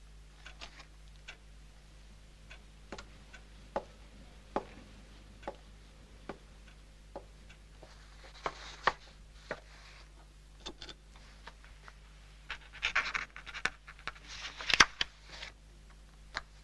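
Sharp single clicks, roughly one a second, over a faint steady hum, with louder clusters of scratchy noise about eight seconds in and again for a couple of seconds near the end.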